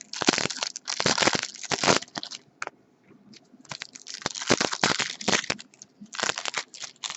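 Plastic wrapping crinkled and crushed by hand, in three bursts of rustling crackle with short pauses between.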